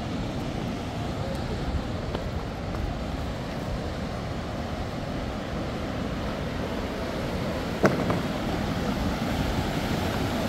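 Steady outdoor rushing noise, with one sharp click a little under eight seconds in.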